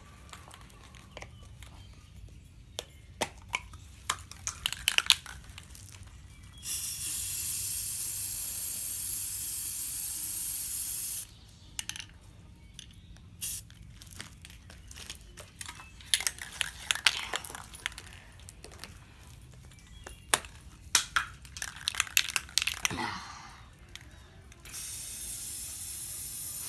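Aerosol spray-paint can being shaken with its mixing ball rattling, then sprayed in a long steady hiss of about four seconds. More rattling and clicking follows, and a second spray of about two seconds comes near the end.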